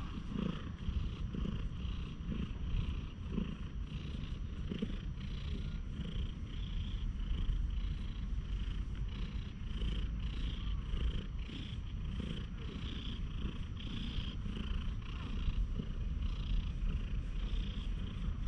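Tabby cat purring steadily while being stroked, with the soft brushing of a hand over its fur in repeated strokes.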